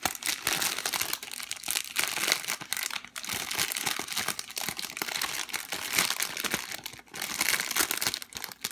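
Packaging crinkling and rustling continuously with many small sharp crackles as a squishy in its wrapping is handled.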